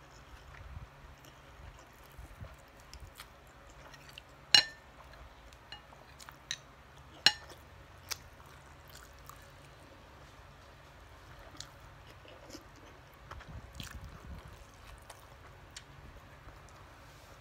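Close-up eating sounds of siomai and rice eaten by hand: soft chewing and small mouth and finger clicks, with two sharp, ringing clinks of dishware about four and a half and seven seconds in, the loudest sounds.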